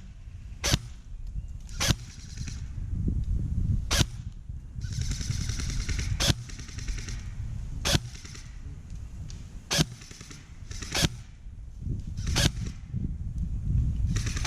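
Airsoft guns firing single shots, sharp cracks about every one to two seconds, with a short rattling stretch around five to seven seconds in. A low rumble runs underneath.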